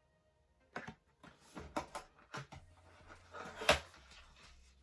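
Cardboard advent calendar box being handled as a numbered door is opened and a product lifted out: a few short scrapes and knocks, the loudest a sharp snap near the end.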